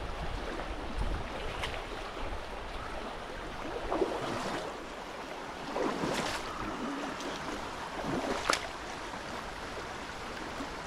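Mountain river water rushing steadily, with a little wind on the microphone near the start. Three short, louder sounds break through at about two-second intervals partway in.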